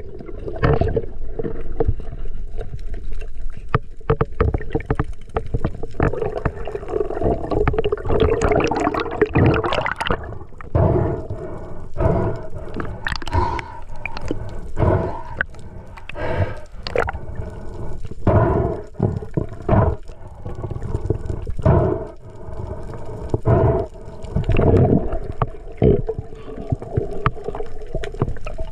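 Seawater gurgling and sloshing around the camera, with many irregular splashes and knocks.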